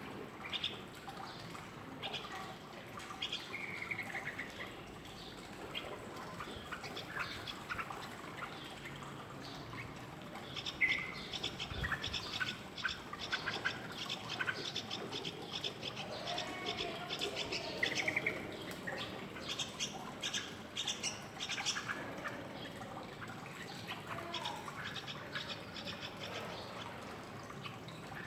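Yellow-vented bulbul chicks begging with rapid high chirps as a parent feeds them, with short whistled calls in between. The chirping is busiest through the middle.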